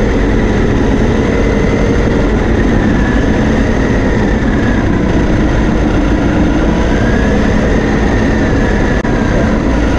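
Small autonomous RC car's electric motor and gears whining as it drives, the pitch rising and falling with its speed, picked up loud by a camera mounted on the car itself.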